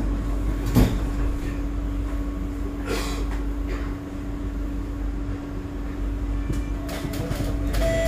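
Sliding doors of a Singapore MRT train car shutting with a loud knock about a second in, followed by a steady low hum and the rumble of the carriage, with a few light rattles and clicks near the end.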